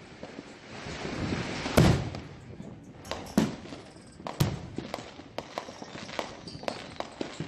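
Aerial fireworks exploding: one loud bang about two seconds in, two more bangs a few seconds later, then a run of smaller, quicker pops near the end, over a steady hiss.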